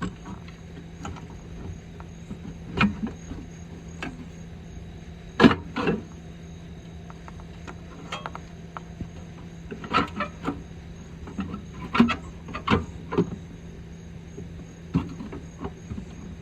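Scattered metal knocks, clunks and scrapes as the Atwood RV furnace's sheet-metal body is worked into its tight wall opening, over a steady low hum.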